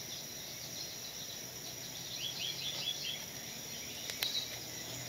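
Outdoor ambience with a steady high insect trill. A little after two seconds in, a bird gives a quick run of about five short falling chirps. A few faint clicks come about four seconds in.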